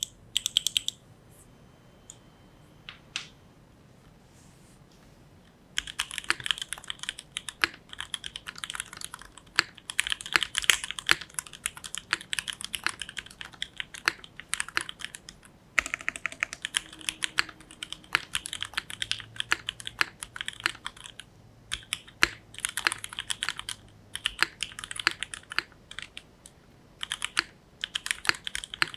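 Typing on an Anorexus Void 65 custom mechanical keyboard: linear Cherry MX Hyperglide Black switches with 50 g springs in a top-mounted carbon fibre plate, under GMK keycaps. A few scattered keystrokes come first, then steady fast typing from about six seconds in, broken by a few short pauses.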